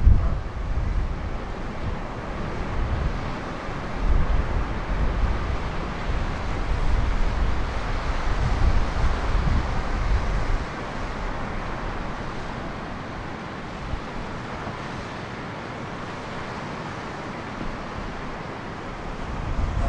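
Ocean surf washing steadily onto the beach, with gusts of wind buffeting the microphone that die down about halfway through.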